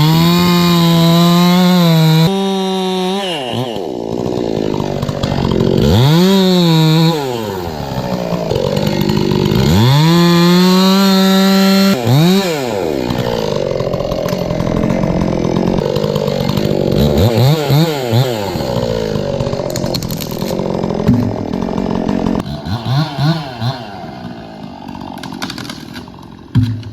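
Chainsaw revved to full throttle and held for about two seconds at a time, three times in the first half, falling back to idle between: cuts through the silver maple limb. Later come several short blips of throttle.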